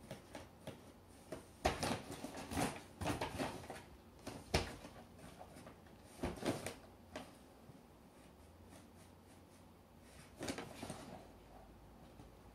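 Paper shopping bag rustling and crinkling as a Norwegian Forest Cat moves and paws inside it. The noise comes in irregular bursts with quiet gaps, the sharpest crackle about four and a half seconds in.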